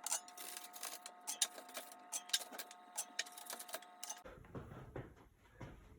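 Faint clicks and light taps of a spatula moving baked cookies from a baking sheet onto a wire cooling rack, over a faint steady hum that drops out about four seconds in.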